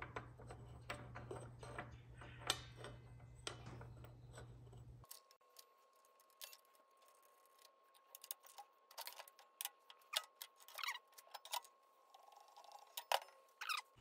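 Light metallic clicks and taps from fitting a carbide-tipped metal-cutting blade on a miter saw: the arbor bolt being tightened and the blade guard handled. A steady low hum underneath cuts off suddenly about five seconds in.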